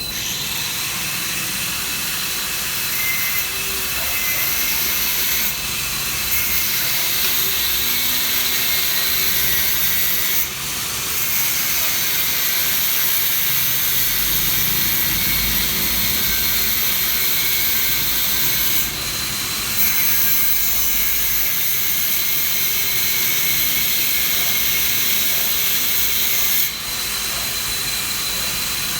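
Angle grinder cutting into a 10 mm OnGuard 8021 steel chain lock: a loud, steady high-pitched grinding whine, easing off briefly four times as the disc is lifted or repositioned.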